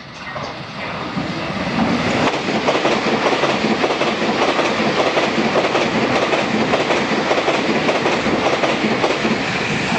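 A Taiwan Railway train passing close at high speed: a loud rush of noise with a fast clatter of wheels over rail joints, building over the first two seconds and then holding steady.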